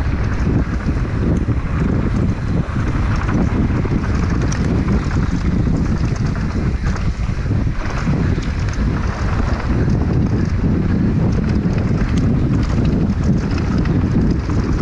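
Wind buffeting the camera microphone on a fast downhill mountain bike descent, a steady low roar, with the tyres on dirt and gravel and many small rattles and clicks from the bike over the bumps.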